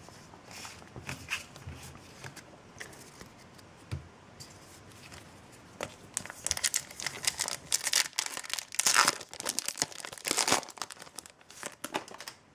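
Foil booster pack wrapper being crinkled and torn open. Faint handling ticks at first, then dense crinkling and tearing over the second half.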